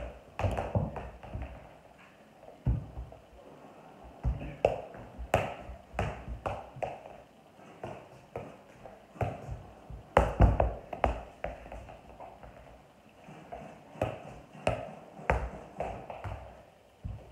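Soccer ball being juggled with the feet: a run of irregular dull thumps as it is kicked up, some in quick succession and some spaced out.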